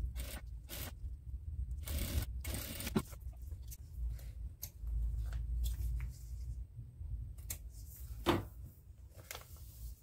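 Clear plastic sheet crinkling and rustling in short bursts as it is handled and drawn out from a sewing machine, over a low steady hum.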